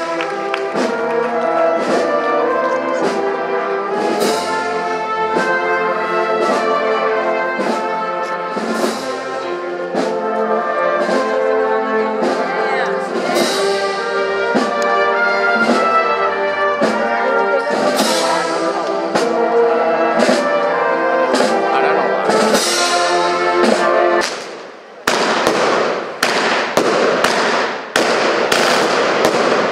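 Brass band playing a tune with a steady drum beat. About 25 seconds in the music stops abruptly and a dense, rapid crackle of fireworks takes over.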